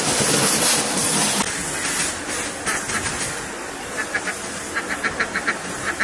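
High-pressure water jet from a spray wand hissing loudly against wooden boards and a concrete floor, dropping off after about a second and a half. Near the end, ducks quacking in a quick series of short calls.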